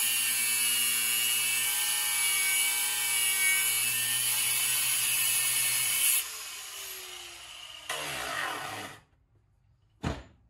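An angle grinder with a cut-off wheel cutting through the transfer case's steel shift lever, a steady high-pitched whine for about six seconds. The grinder then comes off the cut and winds down with falling pitch, runs up again for about a second, and stops. A single knock comes near the end.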